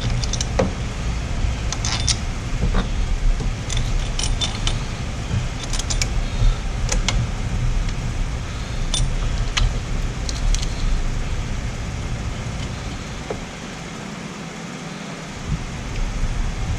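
Scattered metallic clinks and taps of tools and parts as a replacement A/C compressor is fitted into place, over a steady low rumble.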